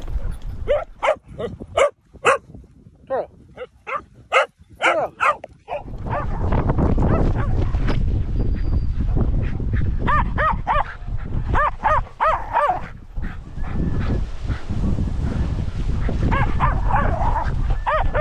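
Dog barking and yipping in quick runs of short, pitched barks through the first six seconds and again in bursts later. From about six seconds in, wind rumbles on the microphone underneath.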